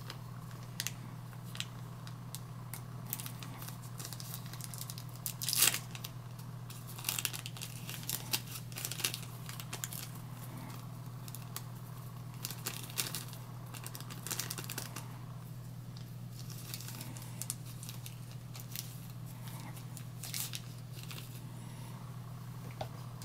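A small seed packet being handled and picked open, with scattered soft crinkling and rustling at irregular moments, the loudest about five and a half seconds in, over a steady low hum.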